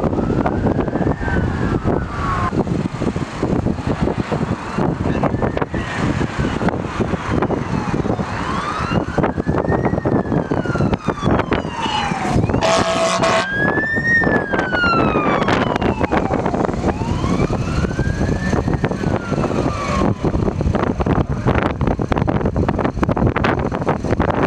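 Fire truck sirens wailing, rising and falling in slow sweeps about every four seconds, over the engine and tyre noise of passing trucks and heavy wind buffeting the microphone. About halfway through a horn sounds for about a second as a truck goes by.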